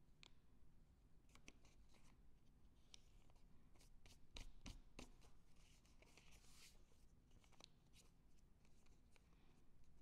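Faint handling of a small sheet of origami paper folded by hand: scattered soft crinkles and crisp creasing clicks, a quick cluster of them a little before the middle, and a short papery hiss as the paper slides a bit past the middle.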